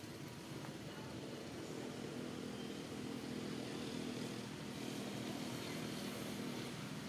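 An engine running steadily, a low hum that grows a little louder about two seconds in and holds.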